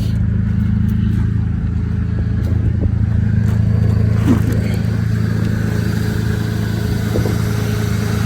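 Mercedes-Benz C230 engine idling steadily with a loud, deep exhaust note, which the owner puts down to a probable hole in the muffler or a bad catalytic converter. A few faint clicks sound over it.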